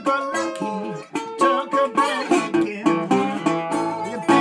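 1929 National Triolian resonator guitar, fingerpicked and played with a metal slide: the slid notes glide and waver in pitch over a plucked, repeating bass line.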